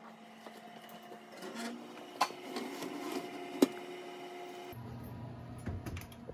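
Ceramic pie dish set onto the metal rack of an open oven, giving two sharp clinks about two and three and a half seconds in, over a steady hum.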